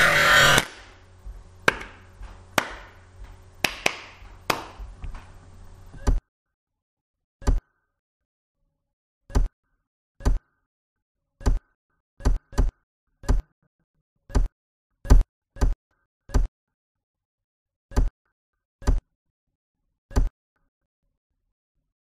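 A series of single sharp knocks, about fourteen, at uneven gaps of one to two seconds, each standing alone in dead silence. Before them, a loud burst of noise fades out at the start, and a low hum with scattered knocks runs until it cuts off abruptly about six seconds in.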